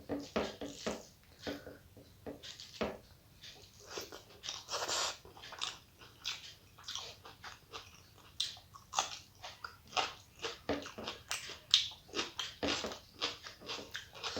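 Close-miked mouth sounds of a person chewing a meal of rice and curry: irregular wet smacks and clicks.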